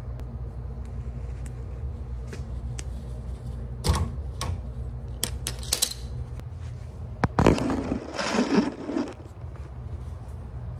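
Locking pliers clamped on a car's rear leaf spring released and pulled off: a few sharp metallic clicks and snaps, then about two seconds of metal clattering and scraping, over a steady low hum.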